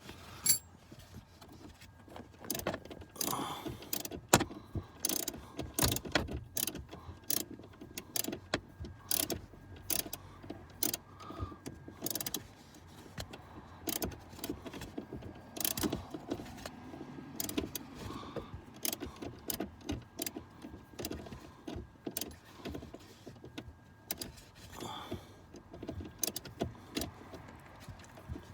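Irregular clicks, knocks and clatter of hand tools and metal and plastic parts being handled while refitting a car's battery hold-down under the seat.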